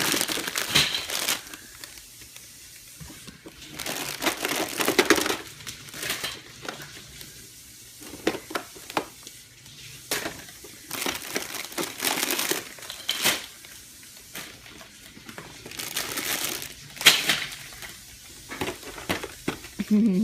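Gift packaging being torn open and crumpled by hand, in repeated crinkling bursts of a second or two with short pauses between them.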